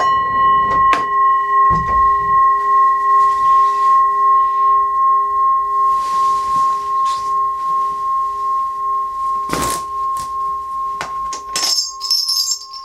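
A brass singing bowl ringing on after a strike, a steady hum of several tones with a slow wavering beat, fading gradually. A brief rustling burst cuts across it about ten seconds in, and near the end a shaman's cluster of hand bells starts jingling.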